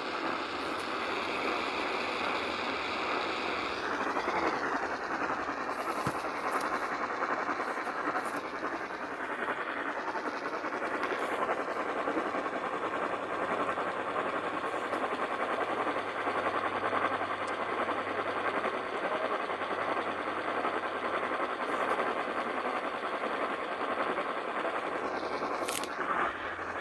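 Steady hiss of radio static, with no voice or alert tone in it.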